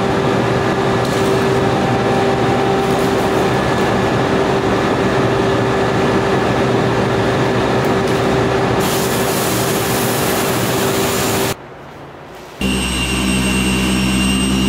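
Pressure washer running with steady spray hiss, cutting off sharply about eleven and a half seconds in. After a brief lull an electric car polisher runs with a steady whine, stopping abruptly near the end.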